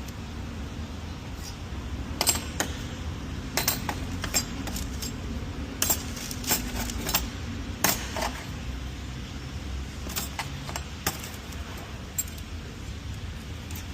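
Scattered sharp metal clinks and taps, a dozen or so, some in quick pairs, over a steady low hum.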